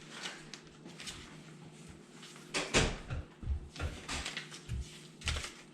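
Handling noise from plastic feeder parts and hardware: scattered clicks, one sharp knock a little under three seconds in, then several dull thumps.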